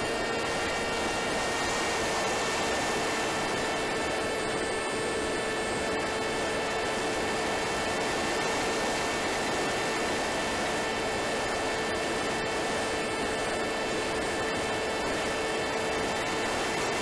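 Wing Wing Z-84 flying wing in flight, heard from its onboard camera: the electric motor and pusher propeller whine at a steady pitch over a constant rush of air.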